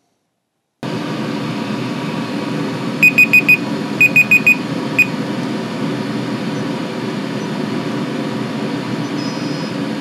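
Phone countdown timer alarm going off: four quick high beeps about three seconds in, four more a second later, then a single beep before it stops. Under it, the steady running noise of a diesel air heater.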